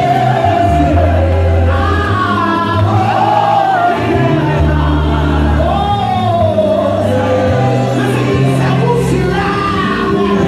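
A woman singing a gospel song into a microphone over amplified backing music with a steady bass line, her melody gliding and holding long notes.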